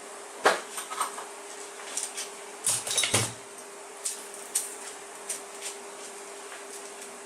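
Metal tools and motor parts being handled, clinking and knocking against each other and a hard surface. There is a sharp knock about half a second in, a short clatter around three seconds, and scattered lighter ticks after it.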